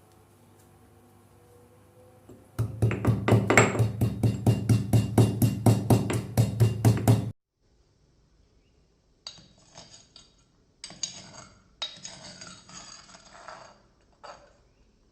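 Rapid, even pounding, about four to five strikes a second for some five seconds, that stops abruptly. After a short gap come several brief scraping or rustling noises.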